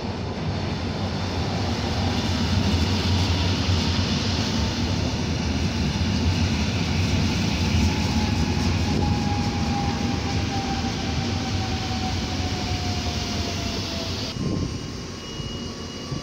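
Koleje Mazowieckie electric multiple unit running in along the platform: a steady rumble of wheels on rail with a low hum, and a faint whine that falls slowly as the train slows. The rumble drops off suddenly about 14 seconds in.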